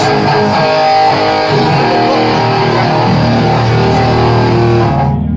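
Amplified electric guitar playing sustained, ringing notes and chords during a band sound check. A little after five seconds in, the higher notes drop away and a low held note rings on.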